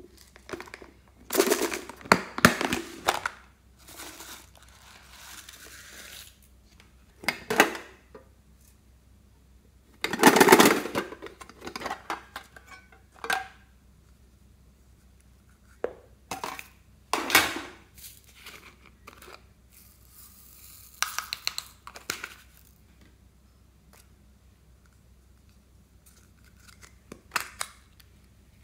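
Plastic makeup compacts and small containers being handled, opened and set down: scattered clicks, clacks and rustles in about six short bursts with quiet between them. The loudest burst comes about ten seconds in.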